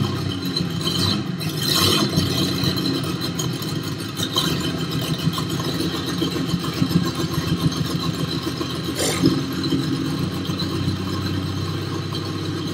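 A motor or engine running steadily, with a low hum and a rough, rattling texture.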